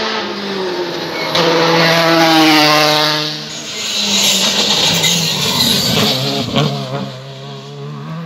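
R5 rally cars' turbocharged four-cylinder engines at full throttle: one car runs loud and close, its engine note climbing and stepping down through gear changes, then a second car passes. A few sharp cracks come near the end.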